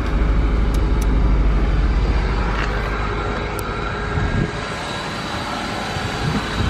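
Acura Integra's four-cylinder engine idling steadily just after a start, with the low rumble easing after about four seconds. A few sharp clicks sound about a second in and again near four seconds, and some low knocks come later.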